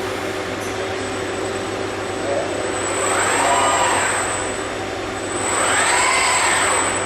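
Industrial robot's servo drives whining as the arm moves, twice rising and then falling in pitch as an axis speeds up and slows down, over the steady hum of the robotic welding cell.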